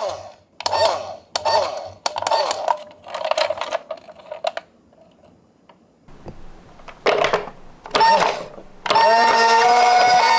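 Toy minicar clattering and rattling in a run of short bursts, a pause, then two more bursts; about a second before the end a two-tone hi-lo ambulance siren starts, alternating between a higher and a lower note.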